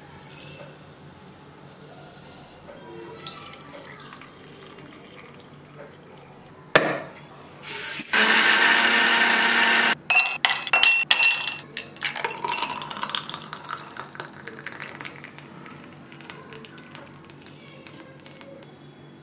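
An electric kitchen blender runs loud and steady for about two seconds, then cuts off. Ice cubes are dropped into an empty glass with a quick run of sharp clinks, and mango juice is then poured into the glass.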